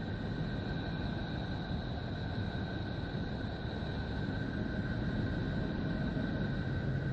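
Sonified planetary radio emissions played as audio: a steady, rough low rumble with two faint, steady high whistling tones above it.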